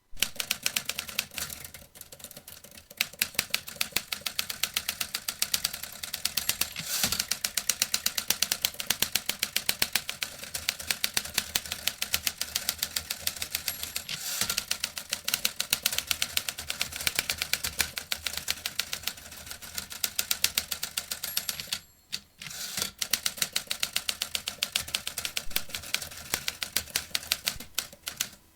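Vintage manual typewriter being typed on steadily: a fast run of sharp key strikes, with a brief pause about three quarters of the way through.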